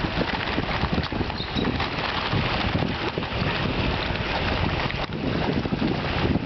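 Water splashing and churning at the surface of a koi pond as a crowd of koi jostle and thrash for food.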